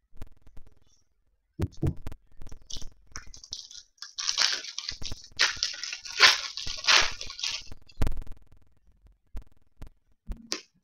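Hands handling trading cards on a tabletop: rustling and sliding, with scattered light clicks and taps and a denser stretch of rustling in the middle.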